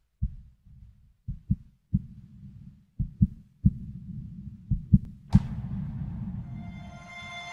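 Heartbeat sound effect: low thumps in pairs, about one pair every one and a half seconds, over a low rumble. A sharp hit about five seconds in, and musical tones start to swell in near the end.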